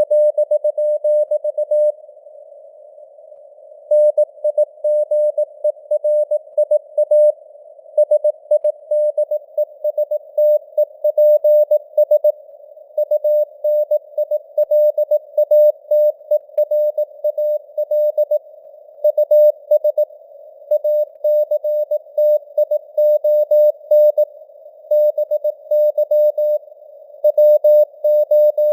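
Morse code (CW) sent at 18 words per minute: a single mid-pitched tone keyed on and off in dots and dashes, with longer pauses between words, over a narrow band of simulated radio hiss.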